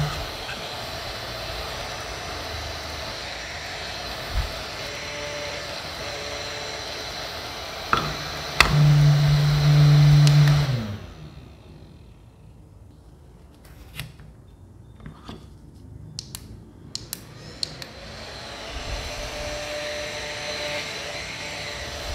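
Small rechargeable handheld fan running at its strong setting: a steady motor whir with rushing air. About nine seconds in it gets louder with a strong low hum, then winds down and stops. After a quieter stretch with a few light clicks, the whir comes back near the end.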